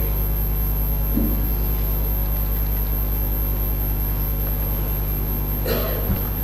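Steady low electrical hum from the live microphone feed. A couple of faint, brief noises come about a second in and again near the end.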